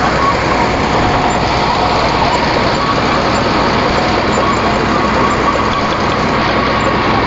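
Heavy diesel vehicle engine running steadily, close up, at an even pitch.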